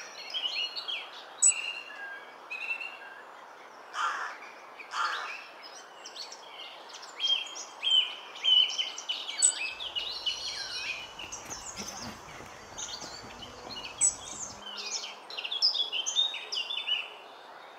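Many small birds chirping and singing in quick, overlapping calls over a steady outdoor hiss.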